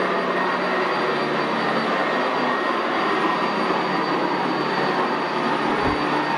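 Sanitaire SC679J commercial upright vacuum cleaner running steadily on carpet, an even motor drone with a low hum and a faint high whine.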